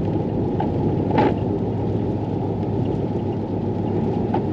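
Steady road and engine noise heard from inside a vehicle driving on a snow-covered highway, with one short burst of noise about a second in.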